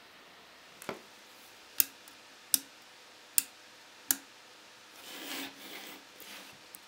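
Handling noise: five sharp clicks and taps of hard plastic and metal parts, each under a second apart, then a couple of seconds of rustling as bundled power-supply cables are moved.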